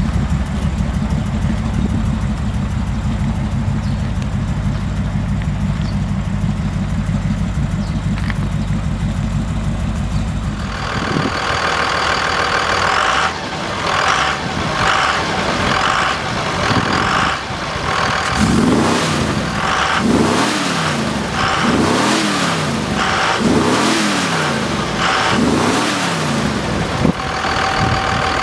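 Pickup truck engine idling with a steady low rumble. About ten seconds in the sound changes to a brighter engine note, and from about eighteen seconds the engine is blipped about six times in quick succession, each rev rising and falling, then settles back to idle.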